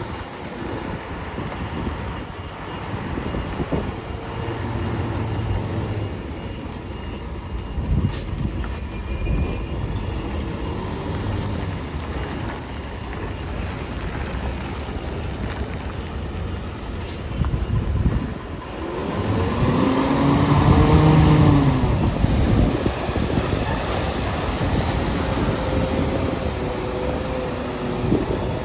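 Semi-truck diesel engine running, with the engine note rising and falling back once about two-thirds of the way through, the loudest moment. Two short sharp clicks come around a third and two-thirds of the way through.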